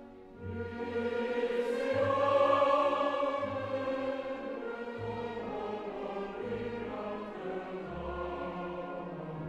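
Background music with a choir singing long held notes over a low part that shifts about once a second, swelling to its loudest two to three seconds in.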